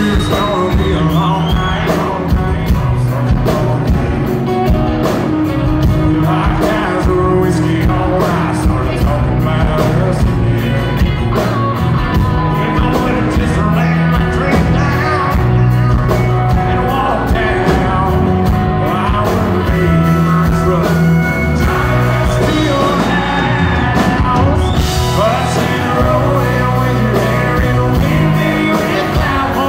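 Live country band playing a song: a man sings lead over strummed acoustic guitar, pedal steel guitar, electric bass and a drum kit.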